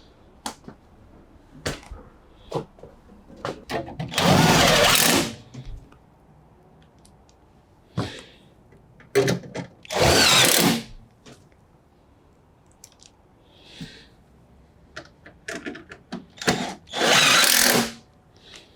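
Power drill-driver driving bolts back into the bottom of a Bosch front-loading washing machine, in three runs of about a second each. Clicks and knocks of handling come between the runs.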